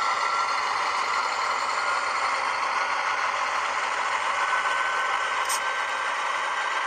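Sound decoder in a model of a Pacific National C43/C44 diesel locomotive playing diesel engine sound through the model's small speaker, thin and without bass. A faint steady whine steps up in pitch about four and a half seconds in, and there is a brief high click about a second later.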